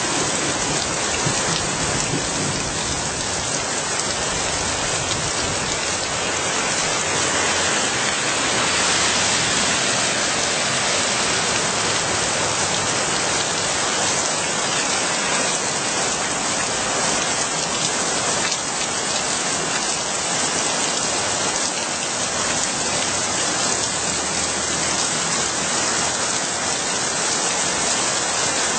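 Steady heavy rain falling on the street, a dense, even hiss of rain on hard surfaces.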